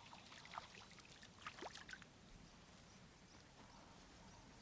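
Near silence: faint outdoor ambience, with a few faint short sounds in the first two seconds.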